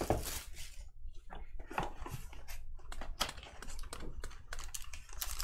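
Soft, irregular clicks and rustles of trading cards and pack wrappers being handled.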